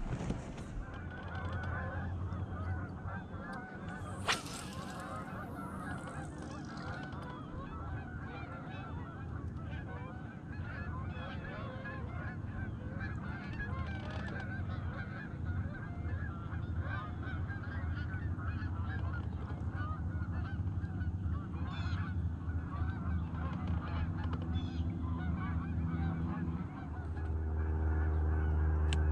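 A flock of geese honking, many calls overlapping in a continuous clamour, over a low steady motor hum that grows louder about 27 seconds in.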